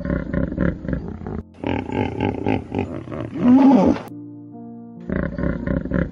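Common hippopotamus grunting in three bouts of rapid pulsed grunts, about five a second, over soft background music.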